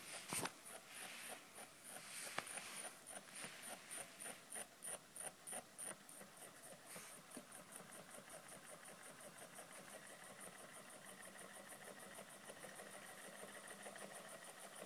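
Homemade solenoid model engine running quietly: the solenoid clacks on each stroke as the flywheel turns, at about three beats a second at first, then faster until the beats blend into a steady rattle. A thin steady whine comes in about two-thirds of the way through.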